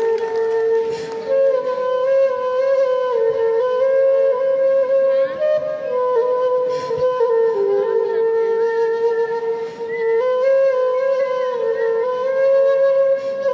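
A slow flute melody played as a ringtone tune: a single line of held notes stepping up and down within a narrow range.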